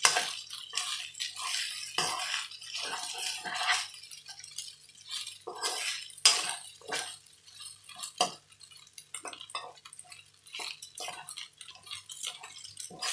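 Metal spoon scraping and clinking against a coated wok as fried rice is stirred and turned, in quick irregular strokes.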